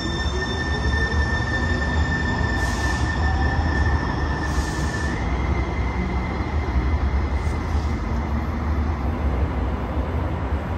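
Sound Transit Link light rail train pulling away from the platform over a steady low rumble. A whine rises in pitch over the first few seconds as it accelerates. A high steady tone holds throughout and steps up slightly about halfway, with a few short hisses.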